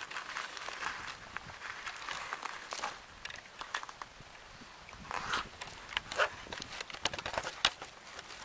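Footsteps through grass scattered with dry fallen leaves: an uneven run of soft steps and rustles.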